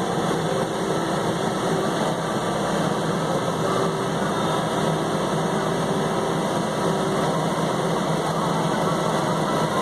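John Deere 3720 compact tractor's diesel engine running steadily while it pulls a bush hog rotary cutter through tall grass, heard from inside the cab.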